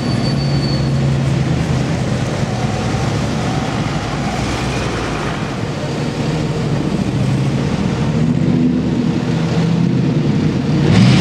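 Steady low engine rumble of slow city traffic idling and crawling, with the Brabus-exhausted Mercedes G55 AMG's V8 among the vehicles. It swells slightly near the end.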